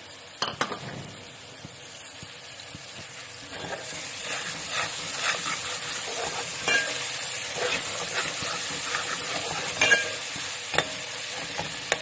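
Spiced tomato masala with green chillies sizzling as it fries in a metal pot, stirred with a metal ladle that clicks and scrapes against the pot now and then. The sizzle gets louder a few seconds in.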